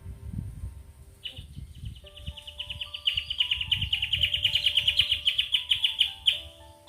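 A bird singing one long, rapid, high trill of many quick repeated notes, starting about a second in and lasting about five seconds. Low gusty wind rumble sounds under it, loudest in the first half, with soft background music of held notes.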